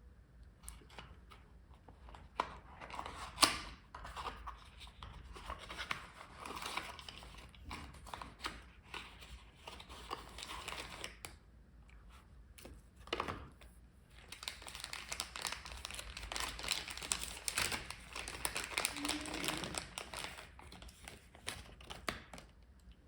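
Packaging being crinkled and torn open by hand while a die-cast toy car is unboxed, with scattered sharp clicks from handling. It comes in irregular bursts, busiest and loudest in a long stretch in the second half.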